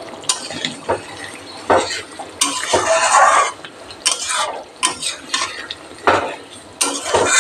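A metal spatula stirring and scraping thick egg-and-potato curry in a metal kadai, with irregular scrapes and sharp clinks where the spatula strikes the pan.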